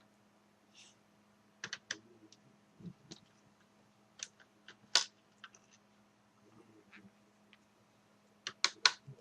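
Scattered small clicks and taps of hand tools and tiny parts against a laptop's plastic case during disassembly, with one sharp click about halfway through and a quick pair near the end.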